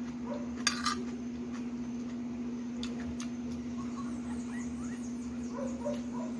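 Steady low electrical hum with faint scattered clicks and small squeaky mouth sounds, typical of someone chewing and eating.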